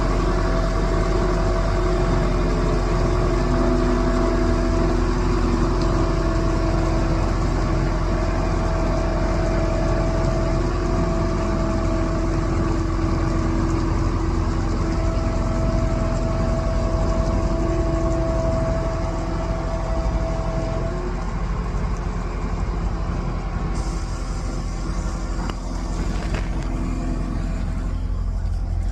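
Heavy diesel machinery running steadily, a low engine rumble with a steady whine over it that drops away about 21 seconds in.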